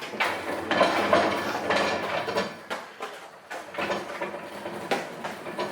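Irregular metallic clattering and knocking.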